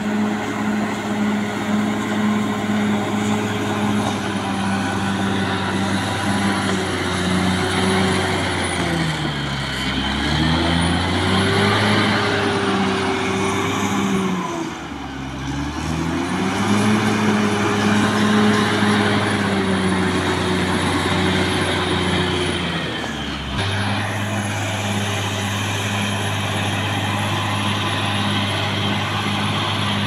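Caterpillar D6R XL bulldozer's diesel engine running hard and steady, its pitch sagging and recovering twice in the middle, with a faint high whine above it.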